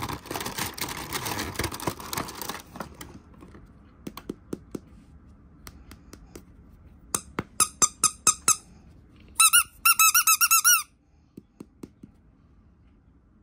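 Packaging rustling for the first couple of seconds, then soft clicks, then a run of short, high squeaks from a squeaky toy, followed by a longer wavering squeak that stops suddenly.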